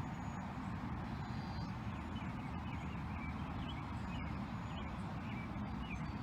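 Steady outdoor background noise, a low rumble with a hiss above it, with faint short high chirps now and then.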